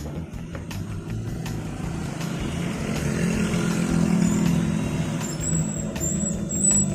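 Motor vehicle engine running, with a low hum that slowly grows louder, as if approaching. A few faint clicks sound over it.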